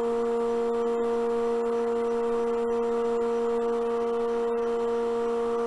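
Steady electric hum of the vacuum pump holding the bowl on the lathe's vacuum chuck, one unchanging pitch with a row of overtones.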